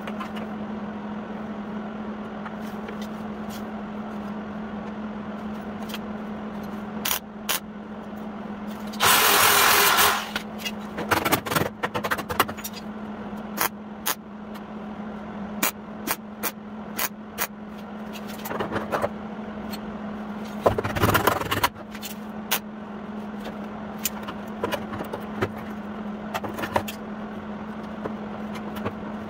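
MIG welder tack-welding a sheet-metal patch panel into place: a loud crackling arc burst about nine seconds in and another near twenty-one seconds. Between them come scattered knocks and clanks of the panel being tapped and worked into shape, over a steady hum.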